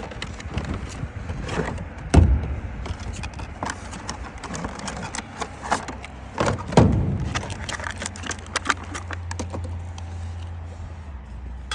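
Irregular knocks, taps and clatter of hands and tools working on the trailer's aluminum roof, with two louder thuds about two and seven seconds in. A steady low hum comes in about eight seconds in.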